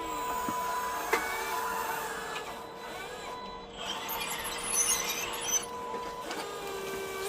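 Small electric drive of a 1:8 scale model excavator whining steadily, with the pitch shifting briefly as it works, and a sharp click about a second in.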